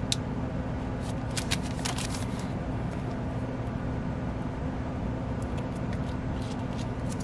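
Thin clear plastic sleeves crinkling and rustling as a paper mask and a photocard are handled, in short scattered bursts over a steady low hum.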